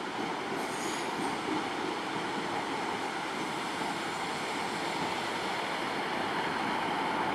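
Class 156 diesel multiple unit running slowly into the platform: a steady noise of its engines and its wheels on the rails.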